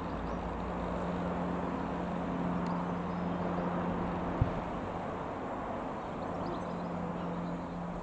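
Piper PA-28-180 Cherokee's four-cylinder Lycoming piston engine running at a steady speed, with wind and outdoor noise around it. A single short knock comes about halfway through.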